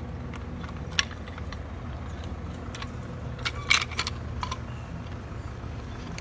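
Metal clicks and clinks of swage tool dies being removed and handled: a single click about a second in and a louder cluster of clinks near four seconds, over a steady low hum.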